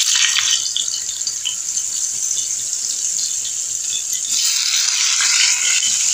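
Pieces of pointed gourd (potol) sizzling in hot oil in a wok: a steady hiss with small crackles. The sizzle grows a little louder about four seconds in as more pieces are dropped in.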